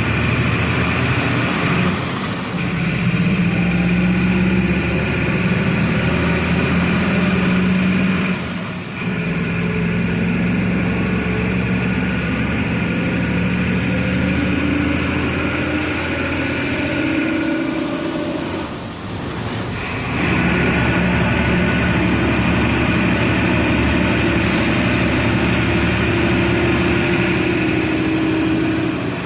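Diesel engine of a Volksbus 17-230 EOD city bus running under load as the bus drives. Its note climbs in pitch and dips briefly three times, about 2, 9 and 19 seconds in, as it changes gear.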